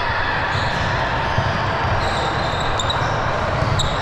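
Busy indoor volleyball gym: a steady reverberant din with balls bouncing in the hall.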